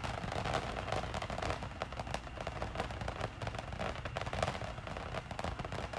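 Backyard consumer fireworks crackling: a dense, steady run of rapid small pops and snaps.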